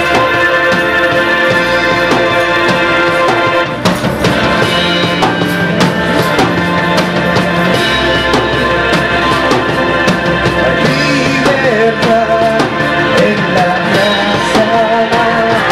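A plucked string ensemble of mandolins and guitars plays a song, with voices singing along, clearest in the second half.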